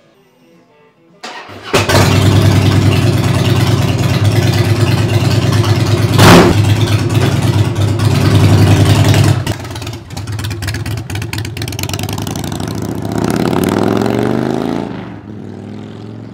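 A heavy cruiser motorcycle engine is started about a second in and runs loud and steady, with one sharp throttle blip partway through. Later it is quieter, then revs up in rising sweeps as the bike pulls away, and fades near the end.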